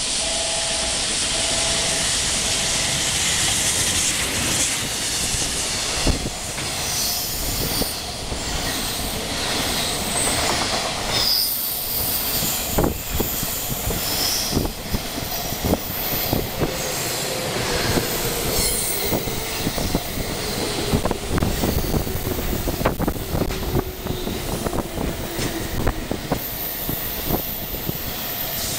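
Container freight train hauled by an EF200 electric locomotive running through at speed: a rising rush as it approaches, then the rapid clatter of wagon wheels over rail joints with brief high wheel squeals. In the second half a tone slowly falls in pitch as a JR West 221 series electric train slows into the next track.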